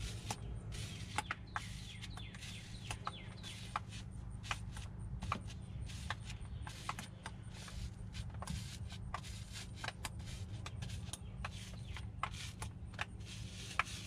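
Fiberglass laminating roller being worked over a wet resin patch, giving irregular small clicks and ticks, over a low steady hum.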